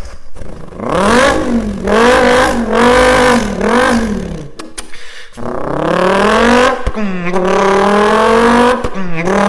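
A person imitating a Dodge Viper GTS engine with their voice: a buzzing engine note that revs up and wavers through a few blips, breaks off about halfway, then climbs again and holds a steady drone.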